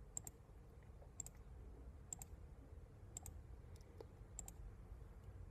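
Computer mouse clicking faintly, a quick press-and-release pair about once a second, as points are placed to draw stitch lines, over a low room hum.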